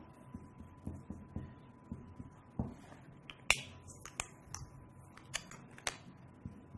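Marker writing on a whiteboard: soft low taps, then a cluster of sharp clicks and short scratchy strokes a little past halfway, the loudest about halfway through. A faint steady hum runs underneath.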